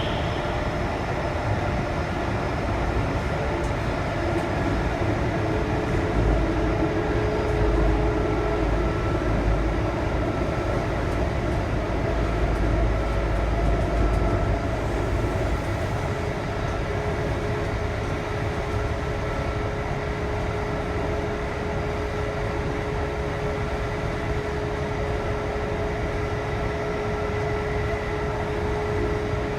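Kintetsu 3220 series subway train running through a tunnel, heard inside the car: a steady whine from the Hitachi IGBT inverter drive and traction motors, over the rumble of wheels on rail. A deep rumble grows louder for several seconds near the middle.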